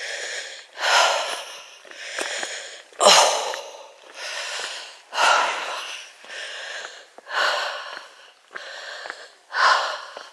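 A woman's heavy, laboured breathing close to the microphone, a breath about once a second, the loudest about three seconds in. She is out of breath from walking uphill under a heavy rucksack.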